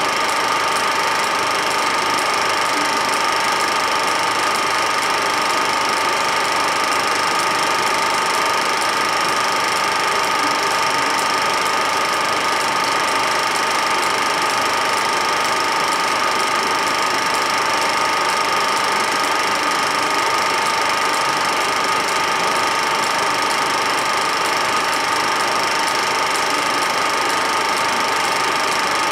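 Film projector running steadily: an even mechanical whir and rapid clatter with a constant high whine.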